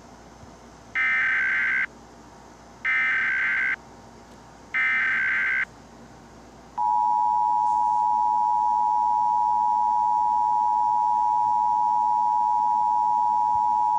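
Emergency Alert System tornado warning header: three SAME data bursts, each just under a second of digital warbling, about two seconds apart. About seven seconds in, the EAS attention signal begins, a steady two-tone beep (853 and 960 Hz) held continuously.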